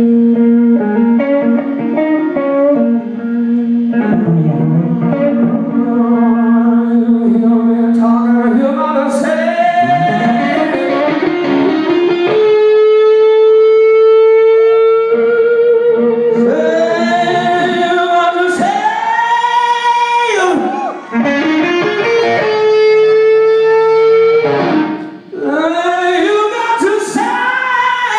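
Live rock band playing, led by electric guitar, with long held notes that waver slightly in pitch.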